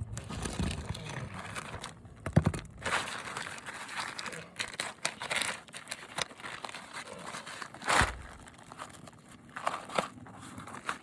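Plastic tarp crinkling and rustling as it is pulled and handled on the roof, with a sharper knock about two and a half seconds in and a louder one near eight seconds.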